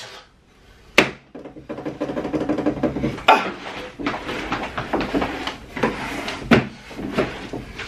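Several sharp knocks and clatter of objects being handled. The loudest knocks come about a second in, just after three seconds and about six and a half seconds in, with lighter knocks between.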